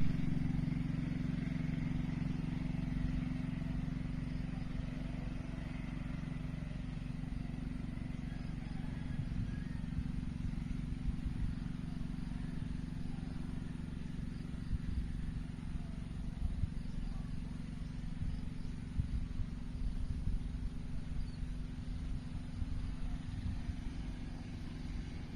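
An engine or motor running steadily: a low, even hum with rumble underneath.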